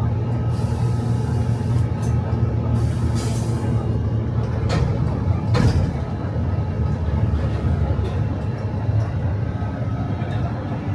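Airport transfer bus engine running with a steady low hum. Two bursts of hiss come in the first four seconds, and there is a brief click about halfway through.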